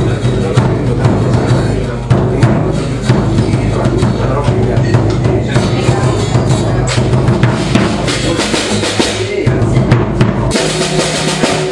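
Acoustic guitar and acoustic drum kit playing a folk-rock song live together, the drums keeping a steady beat of kick and snare under the guitar.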